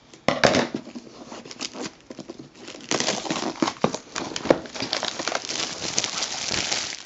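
Crinkling and rustling of packaging and paper as a small white scrapbook album is handled and opened by hand, with small clicks. It grows busier and more continuous from about three seconds in.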